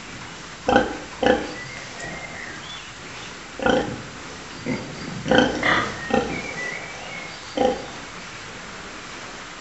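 Large White sow grunting while her piglets suckle, giving short separate grunts, some singly and a cluster of several together in the middle.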